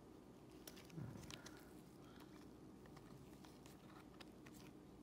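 Faint clicks and slides of thick, hard chrome trading cards being shuffled against each other in nitrile-gloved hands, in two small clusters of soft ticks. A brief low sound about a second in is the loudest moment.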